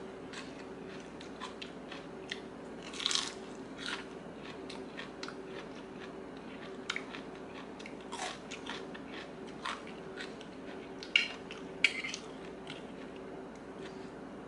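Close-up chewing and crunching of a spicy squid and green mango salad with fresh lettuce, in short irregular bites. Two sharper clicks come near the end.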